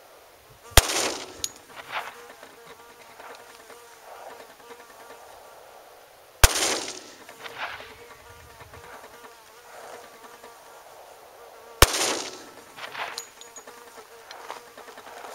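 Three shots from a Glock 20SF 10mm pistol firing Buffalo Bore 220 grain hardcast rounds, roughly five and a half seconds apart, each ringing out with a trailing echo.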